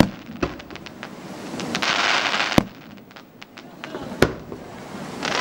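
Fireworks display: aerial shells bursting with sharp bangs, the loudest about two and a half seconds in, with scattered smaller cracks. A hissing rush builds up just before the loudest bang and again near the end.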